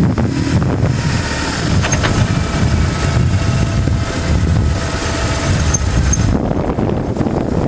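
BMW GS motorcycle riding along a mountain road: the engine is running under heavy wind rush on the microphone. The high hiss dies down about six seconds in.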